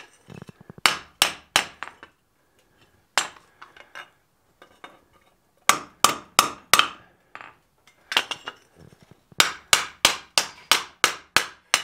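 Ball-peen hammer striking red-hot sheet steel on an anvil, each blow with a short metallic ring. The blows come in short clusters with pauses between, ending in a quick run of about ten strikes, as the edge of a fold-formed dish is flattened.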